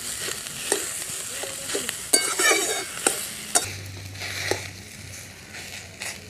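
Metal spatula scraping and stirring pieces of taro in a wok, with the hot oil sizzling steadily underneath. Several separate scrapes of the spatula against the pan as the taro is fried down with spices.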